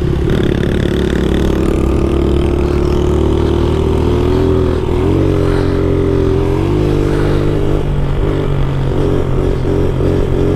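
70cc pit bike engine running under throttle while riding. Its pitch climbs slowly, steps several times around the middle, and then rises and falls in quick steps as the throttle is worked with the front wheel lifted in a wheelie.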